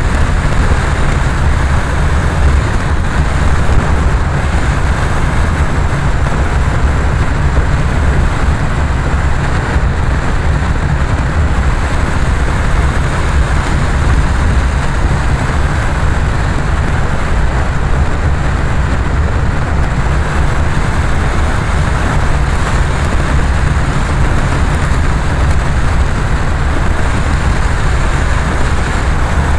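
A car being driven along a road, its engine and tyre noise making a loud, steady low rumble throughout.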